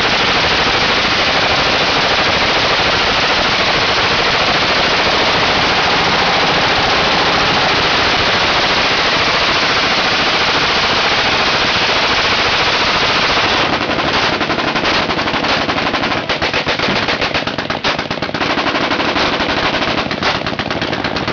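Many machine guns firing at once in a continuous, overlapping roar of automatic fire. About two-thirds of the way through it starts to break up into separate bursts with short gaps as guns drop out.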